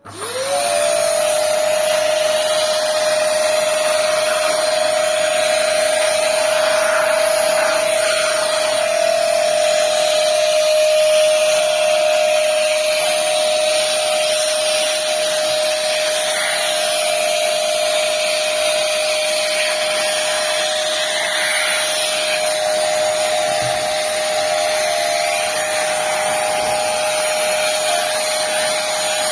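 Vacuum cleaner (hoover) switched on, its motor whine rising and settling to a steady pitch about a second in, then running steadily as it sucks dust off the outside of a PC case.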